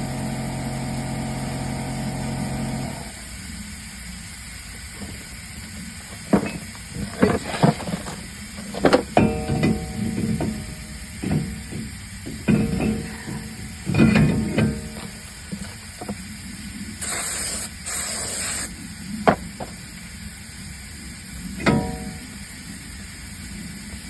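Aerosol brake cleaner sprayed onto a new brake rotor in two short hisses near the end, amid knocks and clanks of metal being handled, some ringing briefly. A steady hum runs for the first three seconds, then stops.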